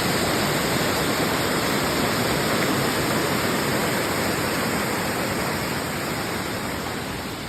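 Heavy rain falling: a dense, steady hiss that eases off a little toward the end.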